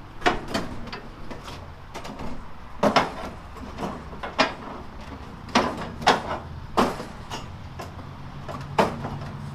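Irregular metallic clunks and knocks, about a dozen, over a low steady hum, as an electric forklift's forks are worked under a small surface grinder to lift it.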